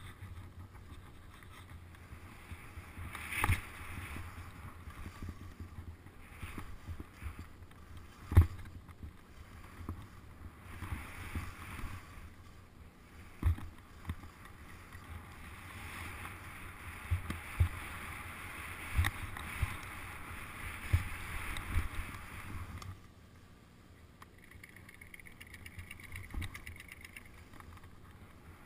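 Skis hissing through off-piste snow in swishing surges as the skier turns, with wind rumble on the action-camera microphone and a few sharp knocks, the loudest about eight seconds in. The hiss drops away briefly near the end.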